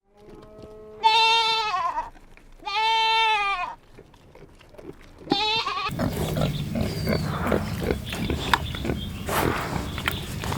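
A goat bleating three times: two long, wavering bleats that fall in pitch at the end, then a shorter one. After that comes a busy stretch of noise with scattered knocks.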